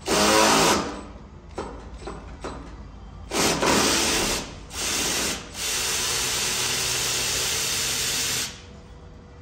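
Power ratchet running in bursts, a short one at the start, two more a few seconds in, then a steady run of about three seconds that stops sharply: a 13 mm bolt on the AC line at the compressor being backed out through a double swivel.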